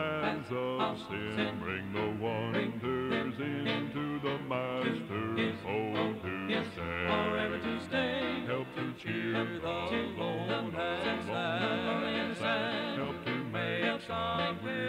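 Country-style gospel song playing from a cassette tape: singing with plucked guitar accompaniment, continuing without a break.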